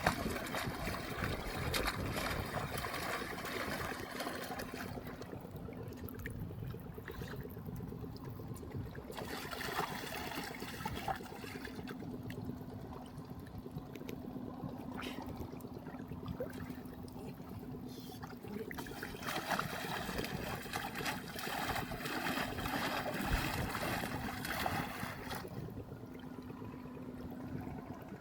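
Water trickling and splashing, swelling and easing over a few seconds at a time, over a steady low hum.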